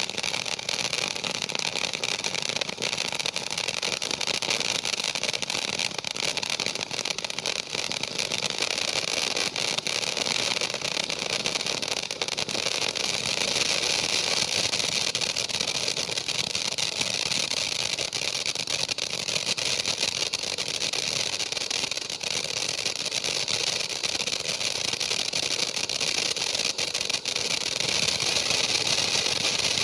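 Kimbolton Fireworks Glittering Gemstones firework fountain burning, a steady hiss of sparks with dense fine crackling from the glitter effect.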